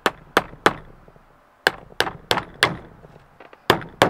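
A hammer tapping the new CV boot's flange down onto a greased CV joint: about nine sharp strikes in three quick runs of three, four and two.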